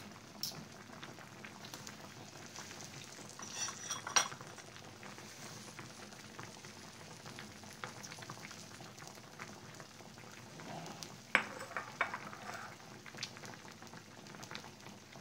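Pot of fish-head and shrimp miso soup simmering, the broth bubbling steadily. A few sharp clicks stand out, the loudest about four seconds in and again about eleven seconds in.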